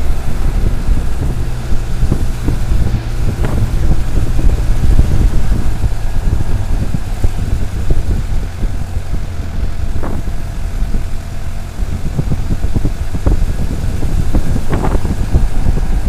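Engine and road noise of an open-sided off-road vehicle driving along a rough narrow road: a steady low rumble with scattered knocks and rattles from bumps, the loudest a little after three seconds in, about ten seconds in and near the end.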